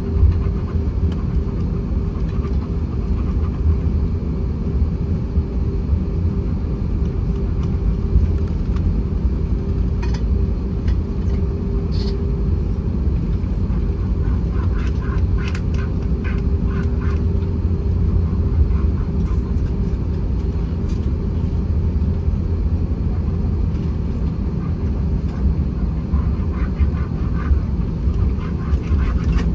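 Steady low rumble of an Airbus A321-231's IAE V2500 engines and rushing air, heard inside the cabin, with a steady hum above it and a few faint clicks.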